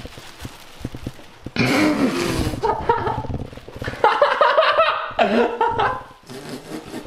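Wordless disgusted groans and laughter from people nearby, starting about a second and a half in, over the rustle of a plastic bag being used to pick up dog droppings.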